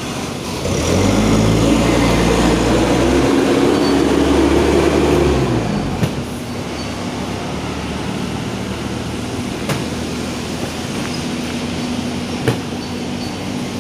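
Forklift engine revving for about five seconds, its pitch rising and then dropping away, followed by an engine idling steadily with a couple of light knocks near the end.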